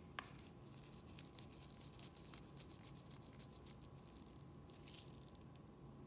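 Faint handling sounds of small repair tools working on an iPhone 7 Plus: a sharp click just after the start, then a run of light ticks and scratches over a low steady hum.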